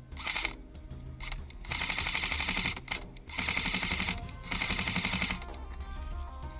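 Airsoft gun firing on full auto in a string of bursts of rapid clicking: two brief bursts, then three longer bursts of about a second each.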